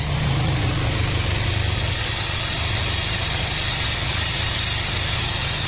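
A sawmill's saw machinery running steadily: a low, engine-like hum with a steady high whine over it.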